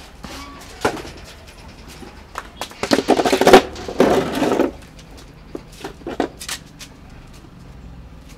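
A plastic stool scraped and set down on a concrete pavement, about three seconds in, among a few scattered knocks and footsteps.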